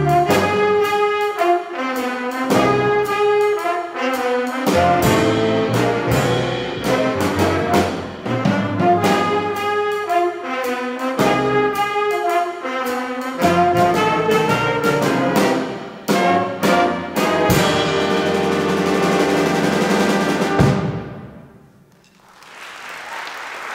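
Jazz big band of saxophones, trumpets, trombones, piano, upright bass and drum kit playing the closing bars of a swing blues, with sharp drum and cymbal hits, ending on a long held full-band chord that cuts off about 21 seconds in and rings away. Audience applause begins near the end.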